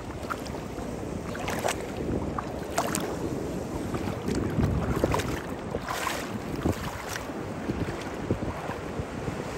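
Wind buffeting the microphone outdoors, a steady low rumbling rush with a few sharp ticks scattered through it.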